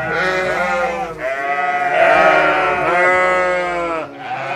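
Sheep bleating: several long, wavering bleats that overlap one another, with brief pauses about a second in and again near the end.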